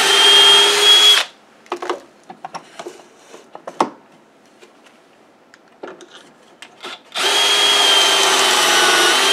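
Cordless drill boring pocket holes through a Kreg pocket-hole jig into a pine board: it runs steadily with a constant whine, stops about a second in, then light knocks and clicks, and it starts again about seven seconds in.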